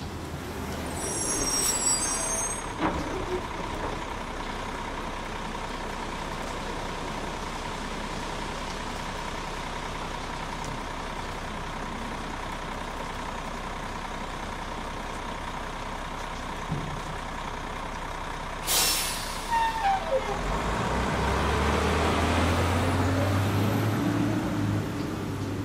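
Steady rain falling into standing water, with a heavy truck nearby: a short air-brake hiss about three-quarters of the way through, then the truck's engine running louder until near the end.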